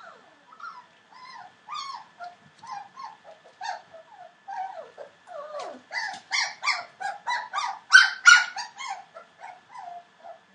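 Four-week-old Entlebucher Mountain Dog puppies whimpering and yipping in short, high-pitched squeals. The calls come faster and louder about six seconds in and are loudest around eight seconds.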